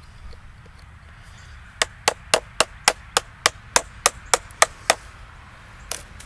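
A mallet striking hard over and over while carving a log. There are about a dozen sharp, even blows at about four a second, then a pause and one last blow near the end.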